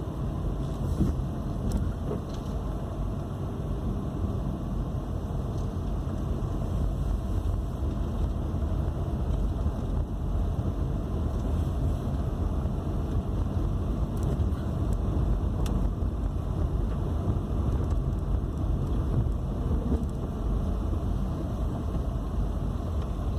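A car running on the road, heard from inside the cabin: a steady low rumble of engine and tyres.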